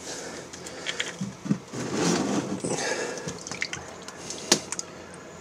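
Dirty used motor oil pouring from a plastic oil drain container onto lathe chuck parts in a drain pan, with clunks from handling the plastic container and one sharp knock near the end.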